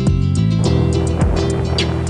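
Background music with a light, steady beat over held bass and chord notes.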